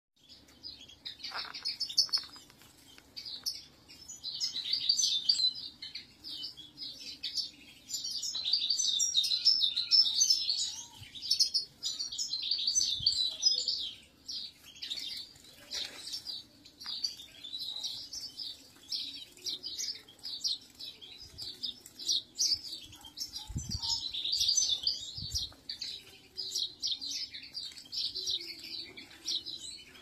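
A flock of European goldfinches twittering: a fast, continuous chatter of high notes, at its loudest for several seconds around ten seconds in.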